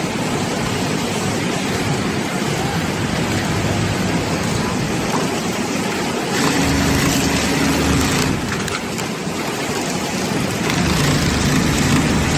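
Steady hiss of running industrial machinery around a computerized pattern sewing machine. About six seconds in, a louder steady hum lasts about two seconds, and another louder stretch comes near the end.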